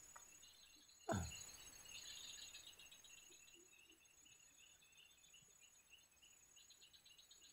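Faint chorus of crickets and other insects at dusk: a steady high trill with a pulsing chirr over it. About a second in, one short sound sweeps down steeply in pitch and is the loudest thing heard.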